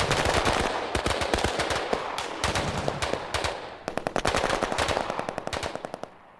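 Sustained automatic gunfire, many rapid shots overlapping in a firefight, thinning out and fading away over the last second or two.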